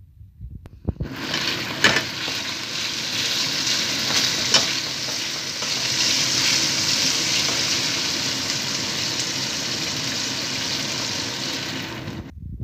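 Sliced pork sizzling steadily in hot oil in a non-stick wok, with two sharp clicks of tongs against the pan. The sizzle starts abruptly about a second in and cuts off just before the end.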